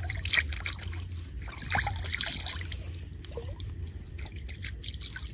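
Water trickling and dripping at the side of a wooden boat, with scattered small splashes and light clicks.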